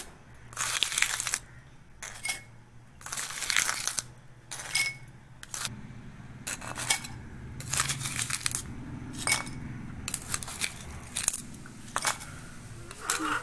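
Crushed ice being dropped into a glass in many short, irregularly spaced pours, each a brief crunch and rattle of ice, landing on muddled lime and mint.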